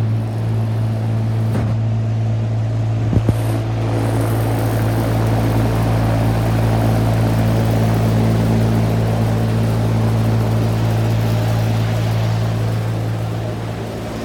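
Trane portable HVAC unit's air-conditioning compressor coming on after switching to cooling: a strong, steady low hum starts at once over the blower's rush of air. A single brief knock about three seconds in.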